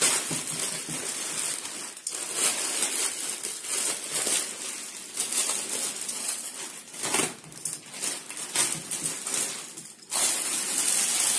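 Plastic courier mailer being torn open by hand, then the inner polythene packet rustling and crinkling as it is handled and pulled out, with a couple of brief pauses.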